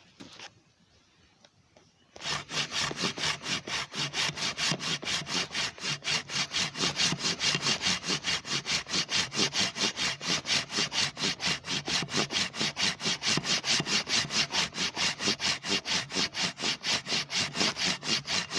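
Pole saw's pruning blade worked by hand through a log: rapid, even back-and-forth sawing strokes, starting about two seconds in.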